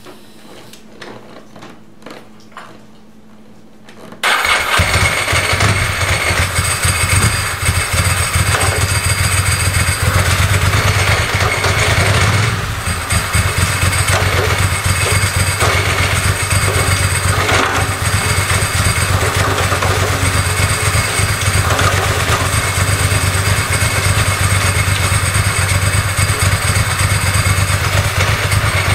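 Ducati ST4's 916 cc V-twin engine fires up suddenly about four seconds in and runs steadily, in gear with the rear wheel spinning on the stand, with a short drop in level about twelve seconds in.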